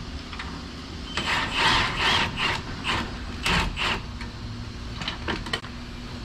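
A ratchet working a suspension fastener in a car's wheel well: four raspy bursts over the first four seconds, then a few light clicks.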